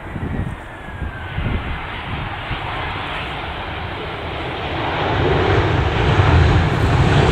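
Aircraft engines running and growing steadily louder over the last few seconds as the aircraft comes closer. Early on, irregular low rumbles of gusty wind hit the microphone.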